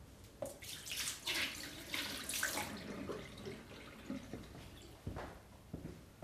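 Water splashing and running in irregular spurts for about the first three seconds, followed by a couple of knocks from plastic parts being handled near the end.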